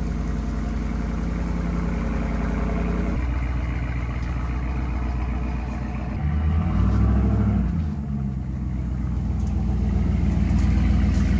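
2014 Dodge Ram 1500 pickup's engine running as the truck drives up, with a brief rise in revs about six and a half seconds in, then running steadily.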